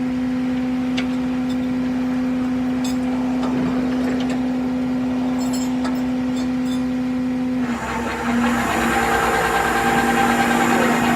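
Steady machine drone of a tow truck's engine and hydraulic winch, a constant hum with a fainter higher tone above it. About eight seconds in it turns louder and noisier, with extra whining tones, as the machinery works harder.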